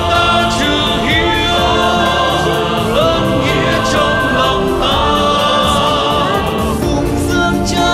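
Theme song: sung vocals with a choir over full instrumental backing.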